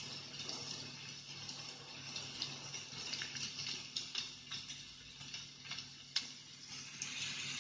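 Recorded rainstorm sound played through a small loudspeaker from an MP3 player module: a steady hiss of rain with scattered sharp clicks, most of them in the second half.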